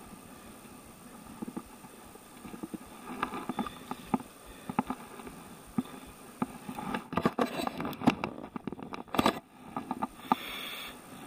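Irregular clicks and knocks of hands handling a telescopic carp pole, its sections knocking as they are pushed back in to collapse it; the clicks come thickest and loudest from about seven to nine and a half seconds in.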